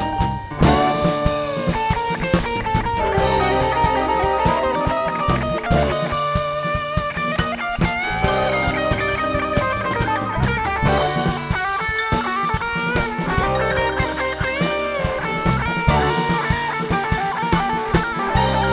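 Live rock band playing an instrumental passage: electric guitar lead line with bent, gliding notes over electric bass and drum kit.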